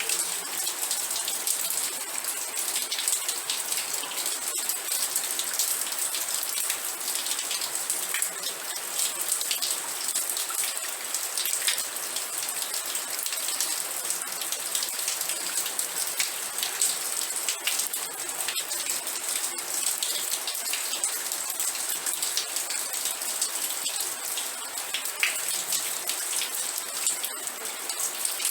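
Steady rain falling, a continuous high hiss with dense fine patter of drops striking a surface.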